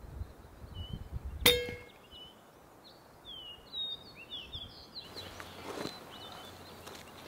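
A single air rifle shot about a second and a half in: a sharp crack with a short metallic ring after it.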